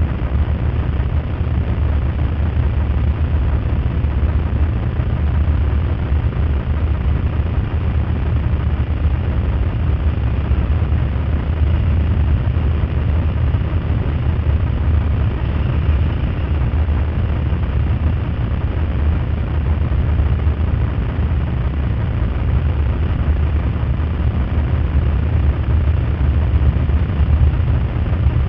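Motorcycle engines running as a group of bikes rides slowly in procession, a steady low rumble.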